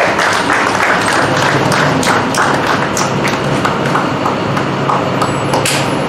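A small crowd clapping in scattered applause, many quick irregular claps that thin out toward the end.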